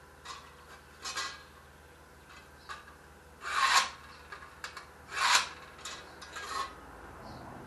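Hand file rasping across a piece of thin iron sheet in a few separate strokes, the two loudest about three and a half and five seconds in.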